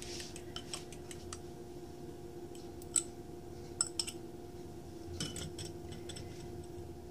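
Scattered light clicks and clinks of kitchenware against a glass mixing bowl as beaten egg is poured in from a small bowl, the sharpest about three seconds in. A faint steady hum runs underneath.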